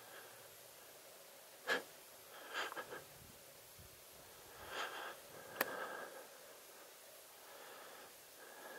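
Quiet footsteps crunching on a dry forest floor in a few short clusters, with two sharp clicks, one a little before two seconds in and one a little after five and a half seconds in.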